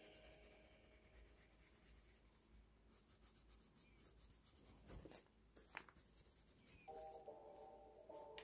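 Colored pencil scratching faintly on kraft paper in short, uneven shading strokes.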